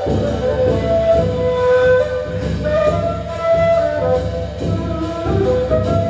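Ney, a long end-blown reed flute, playing a slow melody over a steady drum beat.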